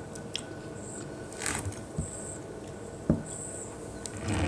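Close-up eating of a fried chicken drumstick: a few short wet mouth smacks and handling noises as meat is pulled off the bone and chewed, with one sharp knock about three seconds in.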